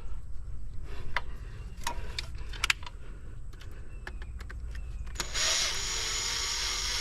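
A few light clicks and taps of handling, then, about five seconds in, a cordless drill runs steadily, taking out a screw set in a wall plug.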